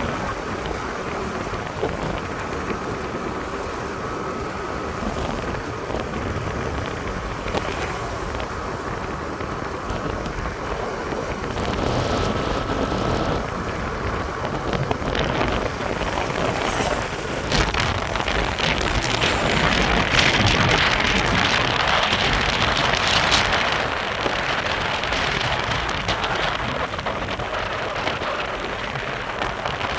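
Vehicle on the move: steady rushing road and wind noise, rising louder and rougher from about twelve seconds in, then easing off again later on.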